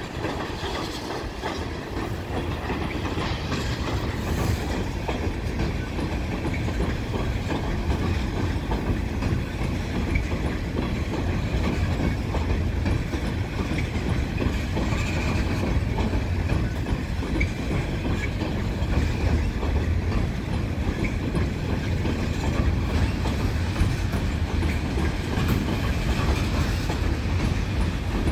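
Tank cars of a freight oil train rolling in reverse across a steel girder bridge: a steady, continuous rumble of wheels on rail.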